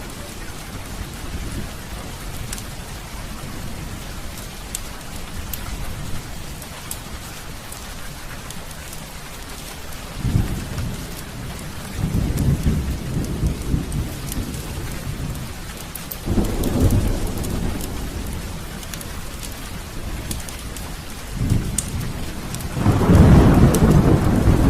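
Heavy rain falling steadily with rolling thunder rumbling several times, the loudest and longest rumble near the end. A fireplace fire gives scattered sharp crackles over it.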